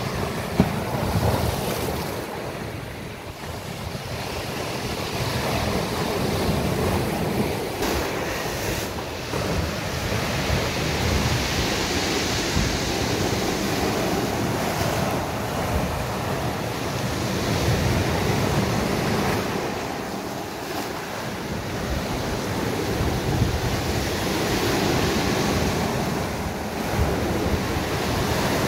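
Sea waves breaking and washing up a beach, the surf swelling louder and softer every several seconds, with wind buffeting the phone's microphone and a brief bump about half a second in.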